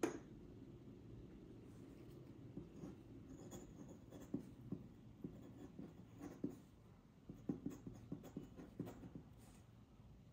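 Faint scratching of a quill dip pen's metal nib across paper in many short strokes as words are handwritten, after a single sharp tap at the start.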